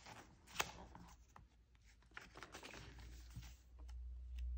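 Faint paper rustling as the pages of a handmade junk journal, stuffed with layered papers and cards, are handled and turned, with one sharper click about half a second in. A low steady hum grows louder near the end.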